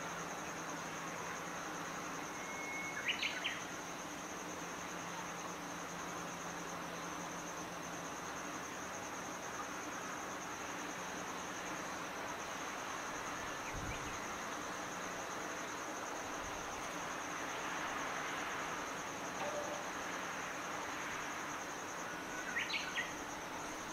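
Steady high-pitched insect trill over a faint low hum and background haze, with two short clusters of chirps, about three seconds in and near the end, and a dull thump about halfway.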